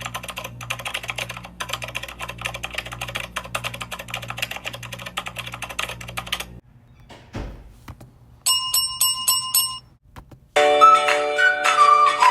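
A sequence of sound effects: a rapid clicking clatter like typing over a pulsing hum, which stops suddenly; a single low thud; a bell ringing in about five quick strokes; then music begins.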